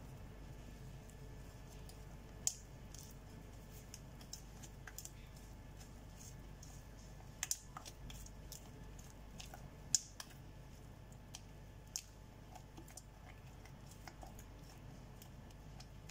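Spatula stirring thick chocolate brownie batter in a glass bowl, with irregular light clicks and taps as it knocks against the glass, a few of them sharper.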